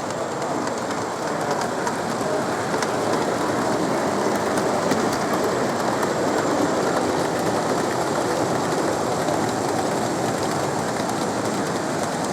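Model trains running on an exhibition layout: a steady rumble of small wheels and motors on track with faint scattered clicking.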